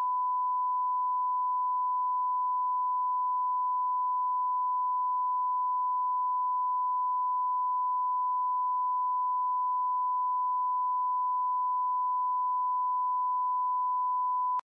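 A single steady electronic sine tone at about 1 kHz, the attention tone of an emergency alert broadcast. It holds at one pitch and level for about fifteen seconds, then cuts off abruptly near the end.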